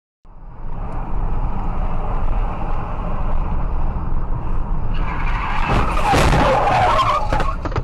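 Car road and cabin noise picked up by a dashcam. About five seconds in, a loud burst of tyres squealing and skidding lasts about two seconds as the car makes a sudden move.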